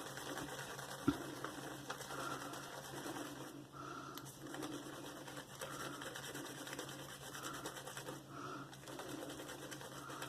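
Synthetic shaving brush working Mitchell's Wool Fat soap into a lather, a faint, rhythmic wet swishing of repeated strokes.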